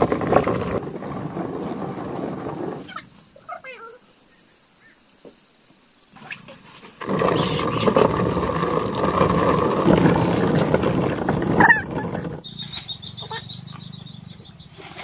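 Hand-turned stone quern grinding dried corn kernels: the upper millstone rasps round on the lower one in two spells, stopping for about four seconds between them and again near the end. A high steady trill can be heard in the background during the pauses.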